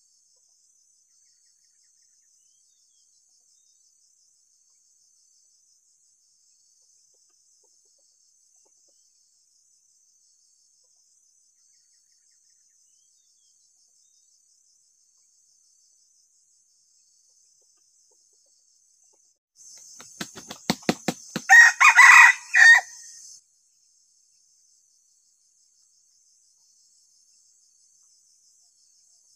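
A red junglefowl rooster crows once about twenty seconds in, a short, clipped crow in a few parts. Just before it comes a quick run of sharp beats, the wing-flapping that roosters do before crowing. The rest is near silence with a faint steady high hiss.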